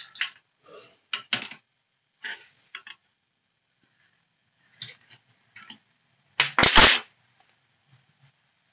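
Short metallic clicks and clinks of wrenches working a CNC router's collet nut while the cutting bit is taken out, with a louder clatter of clinks about six and a half seconds in.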